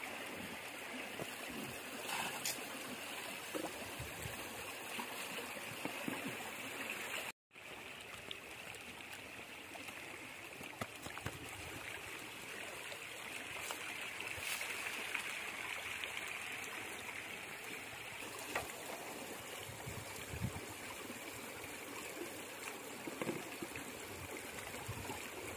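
Water splashing and trickling steadily as water and small fish are scooped by plastic mug out of the belly of a lifted bamboo-framed lift net. The sound cuts out for a moment about seven seconds in.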